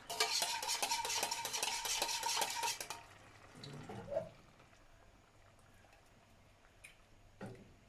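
A metal spoon scraping and stirring rapidly against a metal pot or can for about three seconds, with a faint ringing. It then drops to a quiet, faint background.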